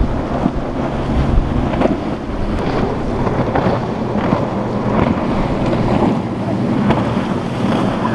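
Outboard-powered center-console boats running fast through chop: a low engine hum, strongest in the first two seconds, under the rush of spray and repeated slaps of the hull hitting waves, with wind buffeting the microphone.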